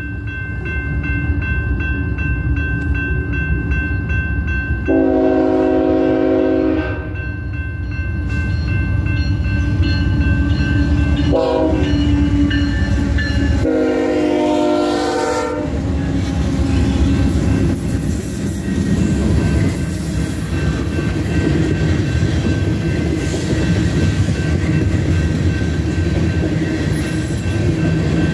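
Diesel locomotive horn sounding the grade-crossing signal (a long blast, a short one and another long one) over the rumble of an approaching BNSF freight train, with the crossing bell ringing steadily. After the last blast, about halfway through, the train's covered hopper cars rumble and rattle past over the crossing.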